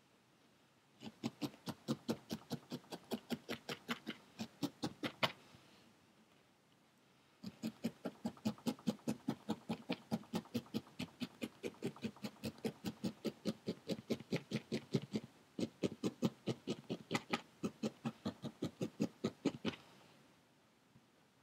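Barbed felting needle stabbing rapidly through a ball of core wool into a foam felting pad, about five jabs a second. The jabs come in runs, broken by a pause about five seconds in and a brief one about fifteen seconds in, as the wool is firmed and shaped into a round ball.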